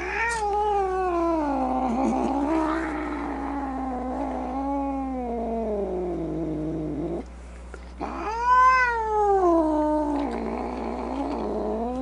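Domestic cat yowling in two long, drawn-out caterwauls. The first wavers and slides down in pitch for about seven seconds; after a brief gap the second swoops up, is loudest just after it starts, then sinks and wavers on.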